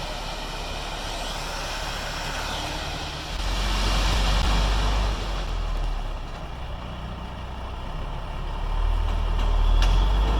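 Gravel dump truck's engine revving in two surges as the truck tries to drive out while stuck, its rear tire spinning in place.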